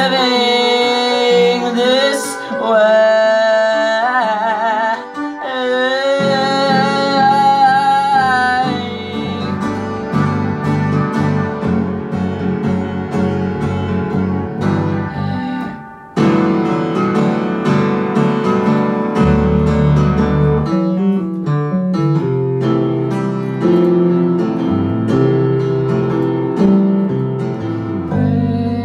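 Live piano-and-voice pop song with electric bass. For the first several seconds a voice holds long sung notes with vibrato over the piano. Electric bass comes in about six seconds in, and piano and bass play on, with a brief break about sixteen seconds in.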